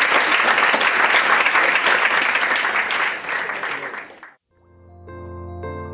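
Audience applauding, fading out about four seconds in; then instrumental music begins, with ringing high notes over a low held bass note.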